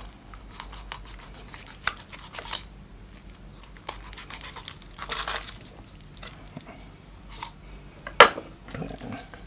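Knife cutting and hands pulling apart raw chicken at the wing joint: soft wet tearing and scattered small clicks, with one sharp knock about eight seconds in.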